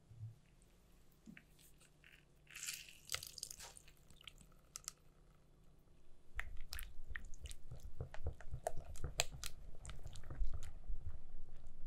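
A hand whisk with silicone-coated wires beating thick cheese cream in a glass bowl, starting about six seconds in: quick, irregular wet clicks and taps against the bowl. Before that, a few soft knocks and a brief wet hiss as a lemon is cut on a wooden board.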